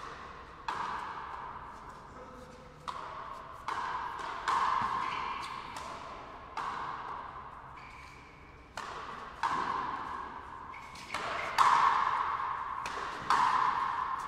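Frontenis rally: the rubber ball is struck again and again by rackets and against the front wall, about a dozen sharp hits at uneven spacing, each ringing with a long echo in the enclosed court.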